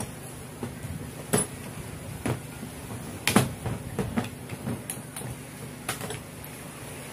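Irregular metallic clinks and knocks of hand tools being handled: a steel drill bit and a cordless drill picked up off the floor and the bit fitted into the drill's chuck. About eight sharp clicks, the loudest about three seconds in.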